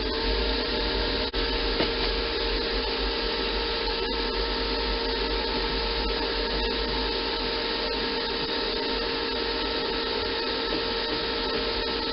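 MIG welder laying one continuous weld to fuse a nut onto a sheared bolt, at its highest power setting and slow wire speed: a steady buzzing arc with a constant tone, unbroken throughout.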